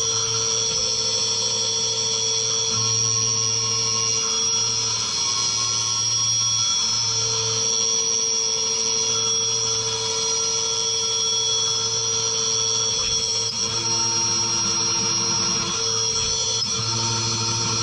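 Skyfire SVM1-VMC mini CNC mill cutting aluminium under flood coolant, its spindle at 7000 rpm. A steady high-pitched spindle whine runs throughout, with lower cutting tones coming and going every second or two as the tool moves through the cut.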